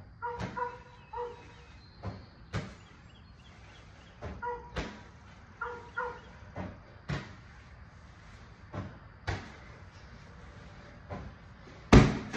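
Medicine ball thuds during wall-ball reps: the 20-pound ball is thrown overhead, strikes and is caught, giving paired thuds about every second and a half. Near the end a much louder thud as the ball is dropped onto the concrete garage floor.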